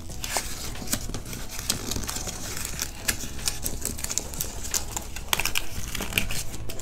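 Cardboard from a shipping box being bent by hand, its slit flaps crackling in quick, irregular small clicks.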